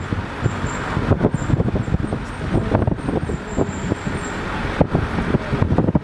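Car driving slowly through town, heard from inside: a steady low rumble of engine and road noise, broken by many short jolts.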